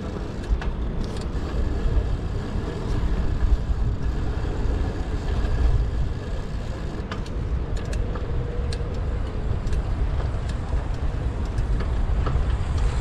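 Ride noise from a GoPro on a moving bicycle: a rough, low rumble of wind on the camera's microphone mixed with passing road traffic, with a few short clicks now and then.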